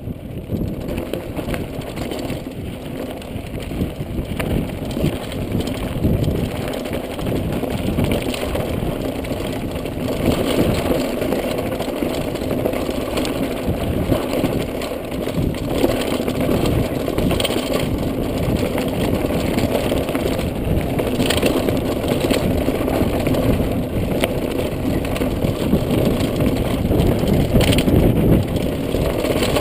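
Trek Remedy mountain bike descending a rocky dirt trail at speed: tyres crunching over loose gravel and the bike rattling continuously over bumps and rocks.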